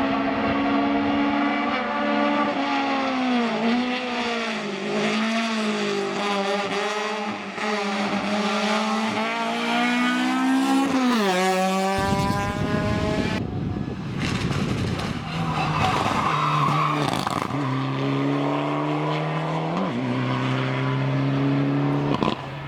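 Hillclimb race car engine at high revs, its pitch rising and dropping with throttle and gear changes. About twelve seconds in it cuts abruptly to another race car's engine, running at more even revs with a few quick steps in pitch as it shifts gear.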